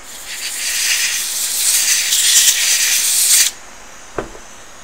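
A hiss of pressurized gas from a nozzle, growing louder for about three and a half seconds and then cutting off suddenly, as on a board being blown or sprayed clean after rework. A single click follows about half a second later.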